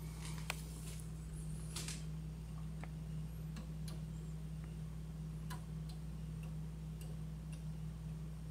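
A steady low hum with faint, sparse clicks at irregular intervals, about ten of them.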